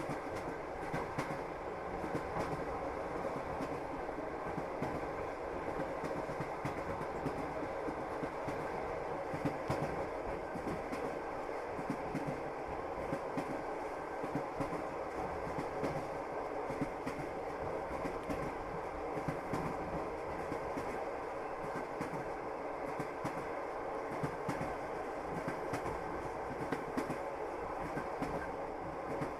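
Train wheels clacking over rail joints, with the steady rumble of a moving railway carriage.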